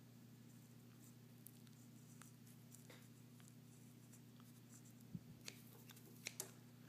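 Scissors snipping the paracord ends: a few faint, sharp clicks and snips, mostly bunched about five to six and a half seconds in, over a steady low hum.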